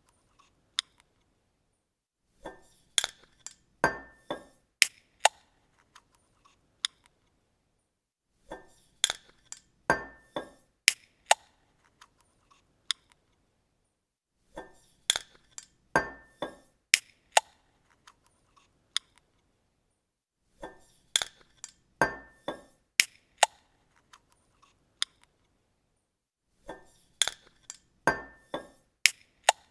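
A bottle cap being opened, repeated five times about six seconds apart: each time a quick cluster of sharp metallic clicks and clinks with a brief ringing tone.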